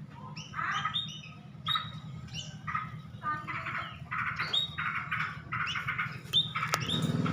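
Tame pipit, a small finch-like cage bird, giving repeated short chirps and chattering calls in quick clusters. A steady low hum runs underneath, and there is a single sharp click near the end.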